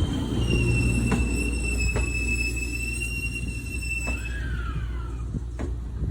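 E131-series electric train running with a steady low rumble and a steady high-pitched metallic squeal lasting about four seconds. A few sharp clicks sound over it, and a short falling whine comes near the end.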